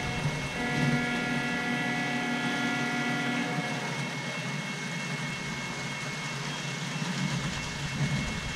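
Model freight train running past on the layout's track, with a steady, chord-like tone that stops about three and a half seconds in.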